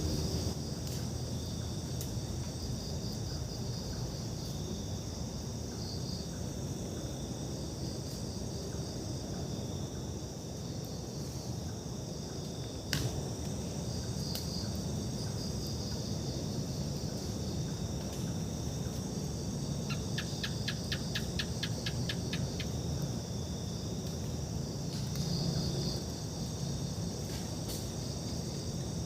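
Crickets and other insects calling steadily in a forest, with pulsing trills over a low steady rumble. A quick run of rapid ticks sounds about two-thirds of the way through, and a single sharp click near the middle.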